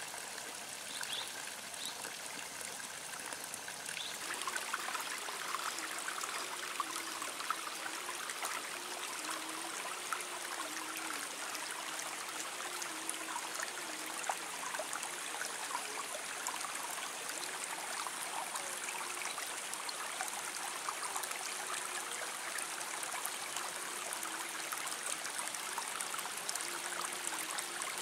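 Water from an irrigation pipe splashing into a flooded rice paddy. About four seconds in, it gives way to a fuller, denser sound of steadily running water.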